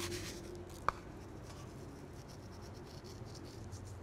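Seasoning going onto thick raw burger patties: faint scratchy rustling and light ticks, with one sharp click about a second in.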